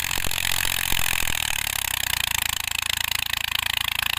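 Deutz-Fahr 55 tractor engine running with a steady low rumble, with a few sharp knocks in the first second and a half.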